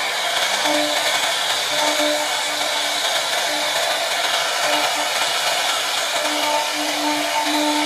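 CNC router spindle running at high speed with a profile router bit cutting a scroll pattern into a wooden board: a steady whirring hiss, with a low hum that comes and goes.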